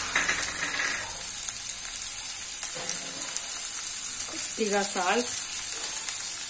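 Chopped onions, green chillies and curry leaves sizzling in oil in a kadai, a steady hiss, with a brief scrape or stir in the first second.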